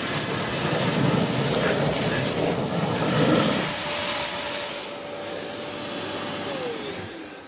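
Kärcher multi-purpose wet and dry vacuum cleaner running under load, sucking up sludge with a loud rushing, gurgling intake noise. Near the end its motor tone slides down in pitch and fades as it spins down.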